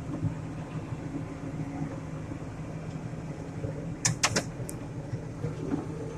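John Deere 8770 tractor engine running steadily under load while pushing and packing silage, with a few sharp clicks about four seconds in.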